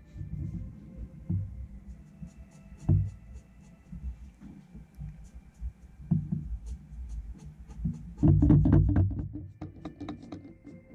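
Ink pen strokes scratching and tapping on drawing paper, with low bumps as the hand and page shift on the desk. A dense flurry of quick strokes about eight seconds in is the loudest part.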